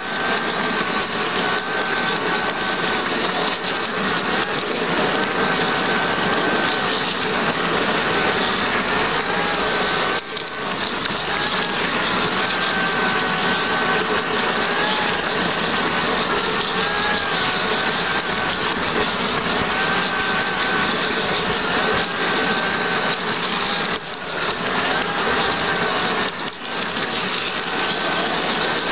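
A model locomotive's electric motor and gearbox running with a steady whine that wavers slightly in pitch, over the rumble of its wheels on the track, with a few brief dips in the sound.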